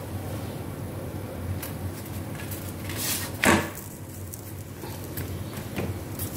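Stuffed paneer paratha flipped over on a hot tawa: one short slap of the flatbread landing on the griddle about three and a half seconds in, with a few light taps before and after it.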